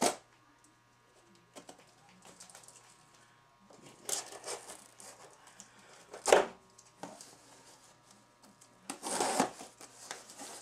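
Cardboard shipping box being handled and cut open at one end with a pocket knife: a sharp knock at the start, brief rustling of cardboard about four seconds in, a louder knock about six seconds in, and a longer scrape of the blade through cardboard near the end.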